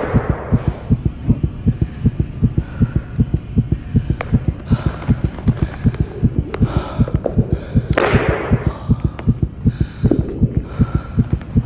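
Heartbeat thumping in a steady, even rhythm, with airy whooshes laid over it at the start and again about eight seconds in.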